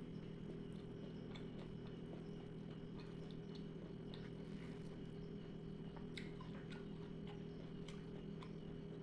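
Close-miked eating: many small, irregular mouth clicks and smacks from chewing rice with cassava leaves, over a steady low hum.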